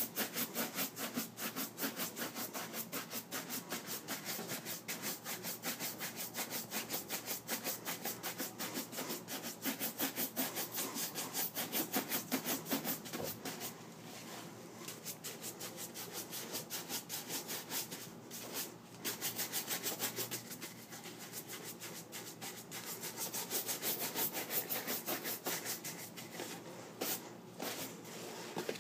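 Horsehair shoe brush buffing a wax-polished leather shoe with quick, rhythmic back-and-forth strokes, several a second, the bristles' friction bringing up the shine. The stroking stops briefly a few times as the brush moves to another part of the shoe.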